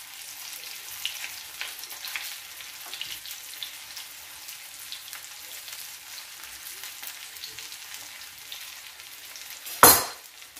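Egg-coated cabbage wedges sizzling steadily in hot oil in a frying pan, with small crackles and pops. One loud, sharp knock near the end.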